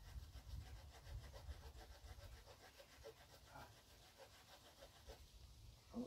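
Faint rasping of a Swiss Army knife's small folding saw blade cutting dead wood in quick, short strokes, over a low rumble.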